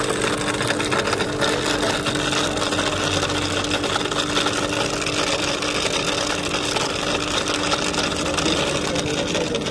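Electric ice-shaving (gola) machine running steadily: a constant motor hum with a dense grinding hiss of ice being shaved.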